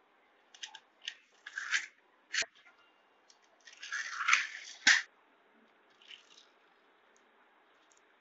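Centy die-cast Suzuki Swift toy car's pull-back motor: clicks and short scratchy rasps as the car is pressed down and dragged back on a marble floor, then a denser buzzing whirr of about a second as it is let go and runs off, ending in a sharp click.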